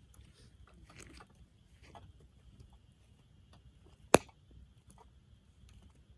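Wood fire crackling quietly with scattered small ticks, and one sharp loud pop about four seconds in.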